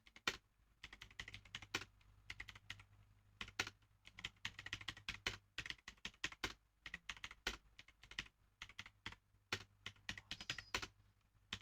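Typing on a mechanical keyboard: rapid, irregular runs of key clicks with short pauses between words.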